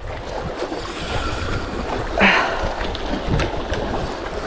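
Sea waves washing against shoreline rocks, with wind on the microphone, and a brief louder rush about two seconds in.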